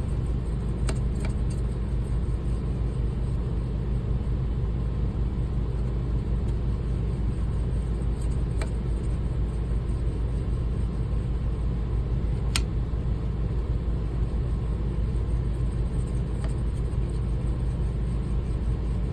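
Steady low rumble of a running sharpening machine while a curved shear blade's ride line is honed, with a few faint sharp ticks.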